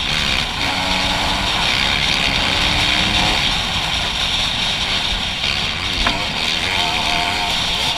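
Dirt bike engine running under way, its pitch wavering up and down with the throttle, over heavy wind and road noise. There is one sharp click about six seconds in.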